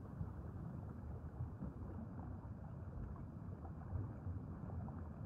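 Steady low rushing underwater ambience, a rumbling water noise with no distinct events.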